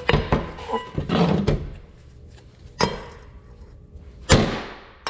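Hammer striking a seal driver to tap a new rear crankshaft seal into the seal housing of an Oliver 1855 engine: a quick run of blows in the first second and a half, then single harder blows about three and four seconds in, each ringing briefly.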